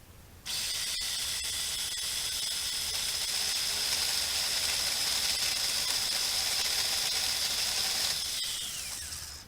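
Saker mini battery-powered electric chainsaw running at full speed with a steady high-pitched whine as it cuts through a limb about an inch and a half thick. It starts suddenly about half a second in, and near the end the trigger is released and the motor winds down with a falling pitch.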